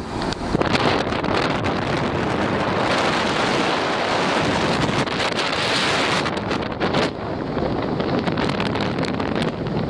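Wind rushing and buffeting over the microphone from a moving car, with short crackles of gusts in the second half.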